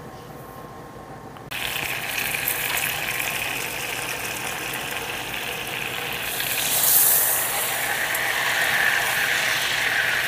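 Butter sizzling and spattering in a stainless steel saucepan as it melts, a steady crackling hiss that starts suddenly about a second and a half in and swells briefly midway, while a wire whisk stirs it. This spitter and spatter marks the melting stage of browning butter, before it foams.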